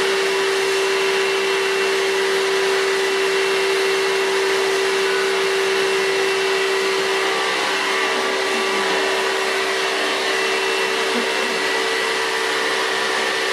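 Bosch Readyy'y cordless stick vacuum cleaner running steadily: a constant motor hum over the rush of air, without change in speed.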